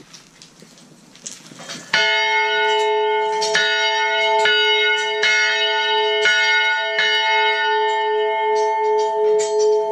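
A 24-inch bronze church bell, cast by Meneely of West Troy, N.Y., in 1853, is rung by its rope. After about two seconds of faint rustle, the clapper strikes six times over about five seconds. Then the bell's hum rings on with a slow pulsing waver.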